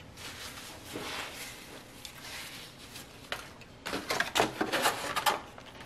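Soft chewing of food, then, about four seconds in, a quick run of loud crackles and clicks as a black plastic takeout clamshell is handled and closed.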